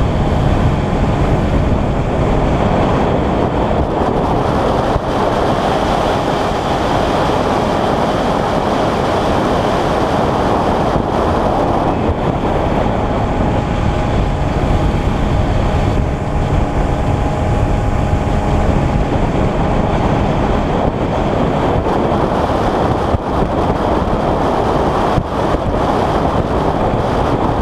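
Fishing boat under way: its motor running steadily under a heavy rush of wind on the microphone.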